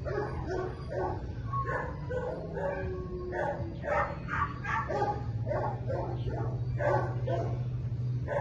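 Dog barking repeatedly, about two barks a second, over a steady low hum.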